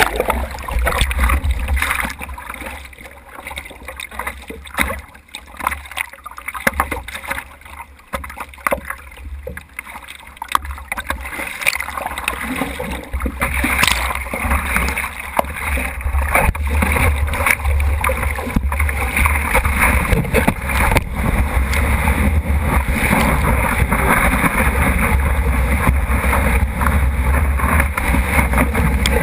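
Surf and whitewash rushing over a GoPro camera housing on the nose of a surfboard, with a deep rumble of water buffeting the housing. For roughly the first twelve seconds it surges and drops unevenly as the board is swamped, then it settles into a steady rush of water as the board rides a wave.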